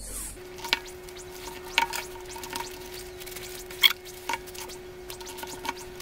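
Black PVC insulating tape being unrolled and pressed along the edges of a cardboard box: scattered light crackles and clicks of the tape and handling, a few sharper ones about two and four seconds in, over a faint steady hum.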